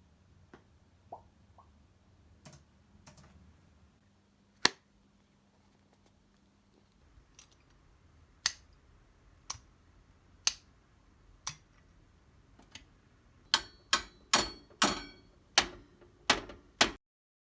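Sharp taps and knocks made with household objects as foley. Single hits come about a second apart, then a quicker run of louder hits near the end, some ringing briefly, before the sound cuts off.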